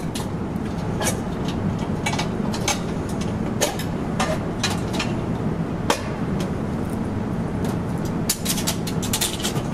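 Scattered sharp metallic clicks and knocks from hands working an M3M heavy machine gun on its door mount while its load state is checked, several in quick succession near the end, over a steady low hum.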